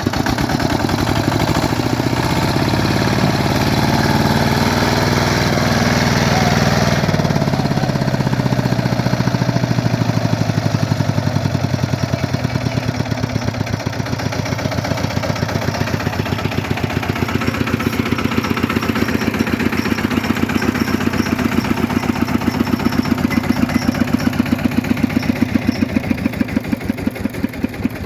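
Small engine running with a rapid, even chug. Its speed shifts over the first several seconds, then settles and holds steady.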